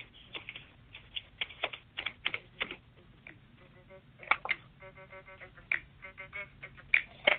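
Scattered sharp clicks and taps, like keys or handling, heard over a telephone line, with a few faint short tones in the middle.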